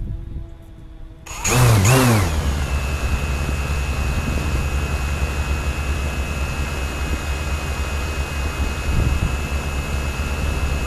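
DJI Mavic quadcopter's motors and propellers starting up about a second in, with two quick rising-and-falling swoops in pitch, then running steadily with a high whine over a low hum.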